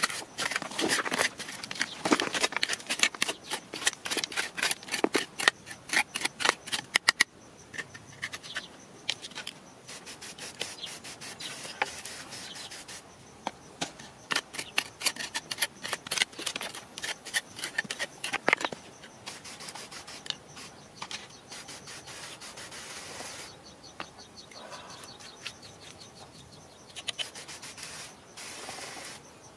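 Hand scraping and digging through damp, gritty soil: fast runs of short scratchy scrapes, dense in the first few seconds and again mid-way, thinning to scattered scrapes later.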